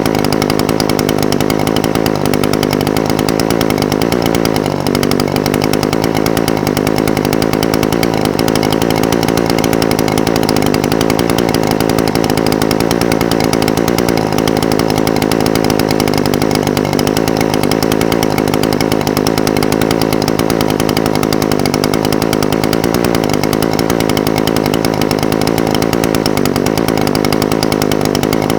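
Echo SRM-420TES brush cutter's two-stroke engine idling steadily, its pitch sagging slightly a couple of times.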